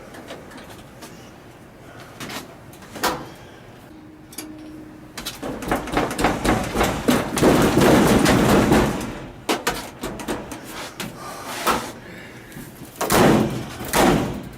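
Knocks and bangs on a clothes dryer that won't start: its door and cabinet banged and slammed, with a few seconds of rapid banging and rattling in the middle.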